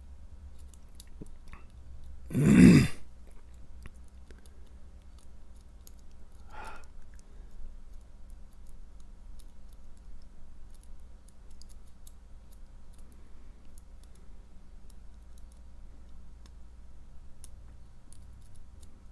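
Faint, irregular clicking of a lock pick and tension wrench working the pin stack of an Assa cabinet lock, over a low steady hum. About two and a half seconds in comes one short loud burst, much louder than the clicking, and a fainter one a few seconds later.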